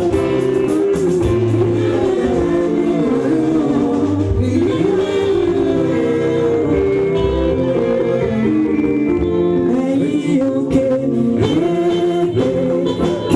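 A church choir singing live, led by a singer on a microphone, with keyboard accompaniment.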